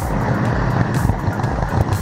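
Model train rolling along its track, heard from the camera car riding on it: a steady low rumble of wheels on rails with a few sharp clicks.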